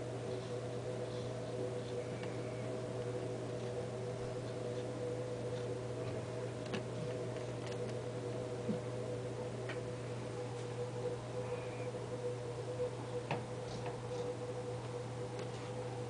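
A steady low hum with a few faint ticks and clicks scattered through it.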